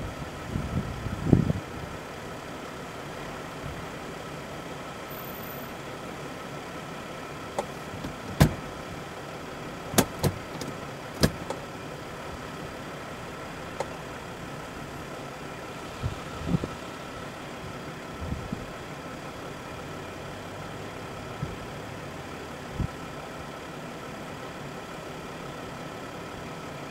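A vehicle engine idling steadily, with a few short sharp knocks scattered through it, several of them close together about eight to eleven seconds in.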